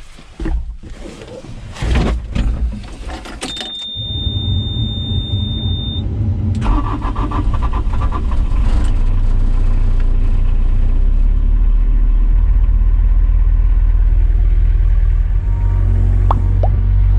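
An excavator's diesel engine starting. A few knocks come first, then a steady beep of about two seconds, and then the engine catches and builds to a steady low running drone.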